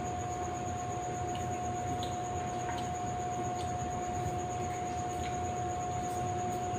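Steady background hum with a constant high tone, and a few faint, scattered clicks.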